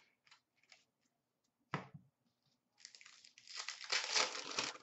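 Trading cards being flicked through with faint ticks, a single sharp knock a little under two seconds in, then a hockey card pack's wrapper being torn open with a loud crinkling rip over the last two seconds.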